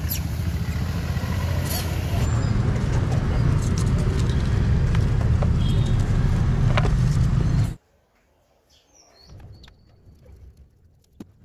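Steady, loud vehicle rumble with a deep low end that cuts off abruptly about three-quarters of the way through. A much quieter stretch follows, with a few faint ticks and a brief high chirp.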